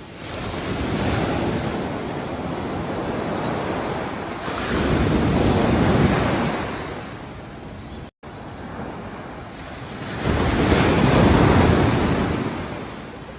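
Ocean waves breaking and washing up the shore in three swells, each one building and then falling back. There is a brief cutout of the sound a little past the middle.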